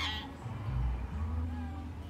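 Young hill myna calling: a sharp call right at the start that falls in pitch, then faint thin whistled notes, over a low pulsing rumble.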